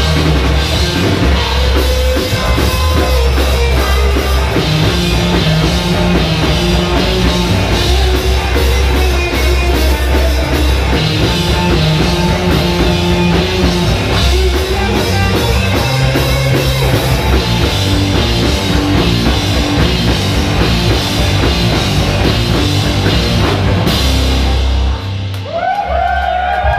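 Live heavy rock band playing loud, with distorted electric guitar, bass guitar and drum kit. The song ends about 25 seconds in, and crowd whoops and cheers follow.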